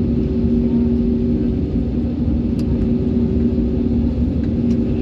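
Steady airliner engine drone heard from inside the passenger cabin: a continuous low rumble with a steady hum over it.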